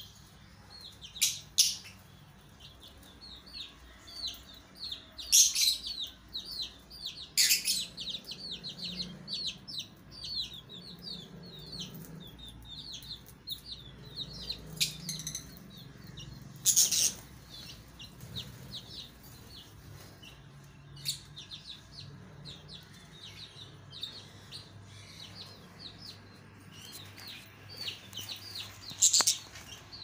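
Pet budgies and chicks chirping in quick, high, repeated peeps, with a few loud sharp knocks scattered through.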